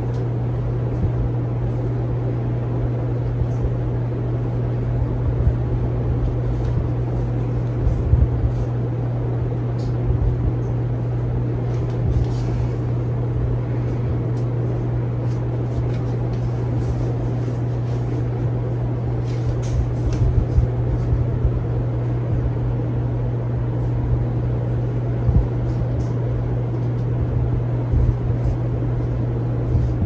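52" Hunter Original ceiling fan with five blades running: a steady low motor hum over a rushing of air, with uneven low rumbling and a few faint ticks.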